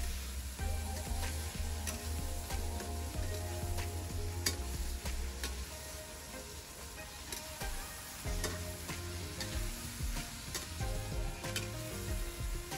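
A metal ladle stirring and scraping in a kadhai of sizzling oil over a wood fire, with scattered sharp clicks of the ladle against the pan over the frying hiss.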